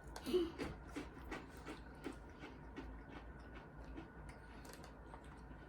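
Faint, irregular crunching and clicking of someone chewing crisp crackers.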